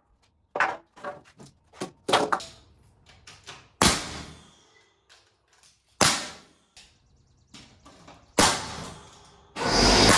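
Pneumatic framing nailer firing three times, about two seconds apart, each shot a sharp bang followed by a short hiss of air, after light knocks of wooden 2x4s set down on a concrete floor. Near the end an air compressor starts up and runs with a steady loud hum.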